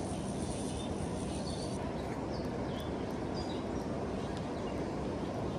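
Steady rushing of river rapids, with a few short bird chirps above it.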